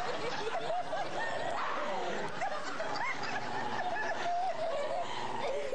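People laughing: a continuous run of snickers and chuckles.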